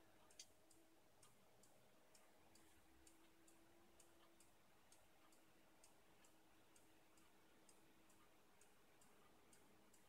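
Near silence: faint, even ticking, a little over two ticks a second, over a faint steady hum.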